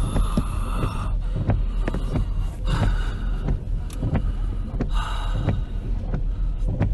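Typhoon wind buffeting the phone's microphone in a constant low rumble that swells and fades, with rain pelting it in many sharp ticks.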